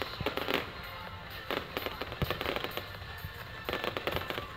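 Fireworks exploding overhead: a dense run of sharp bangs and crackling at irregular spacing, several a second, with thicker bursts of crackle in the middle and near the end.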